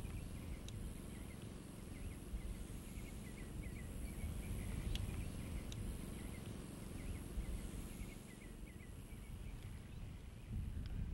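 Outdoor ambience: a low wind rumble on the microphone, with a bird giving a long series of short repeated chirps that die away about nine seconds in.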